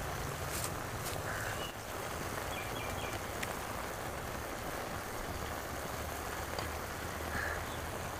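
Outdoor background with a low steady hum, a couple of short distant bird calls and a few faint clicks as halved potatoes are set on the ingredients in an aluminium cooking pot.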